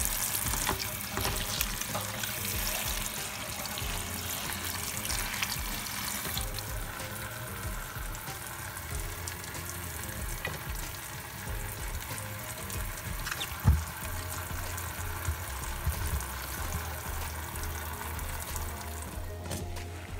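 Background music with a repeating bass line over a hissing kitchen sound, with one sharp knock about two-thirds of the way through.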